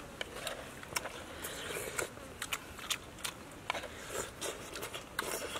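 People eating hot soup with spoons: irregular slurps, chewing and short clicks and scrapes of the spoons.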